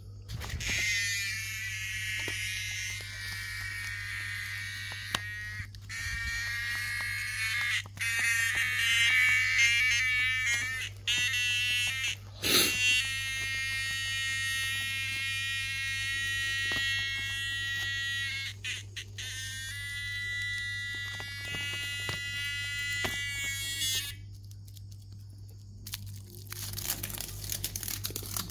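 A cicada buzzing loudly in long, steady stretches broken by short pauses, with a sharp knock about halfway through. The buzzing stops a few seconds before the end and gives way to crinkling.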